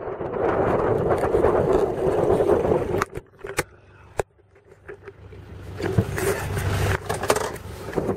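Off-road truck running, heard from inside the cab as a steady rumble and rush. About three seconds in it drops away for a couple of seconds, with three sharp clicks, then picks up again.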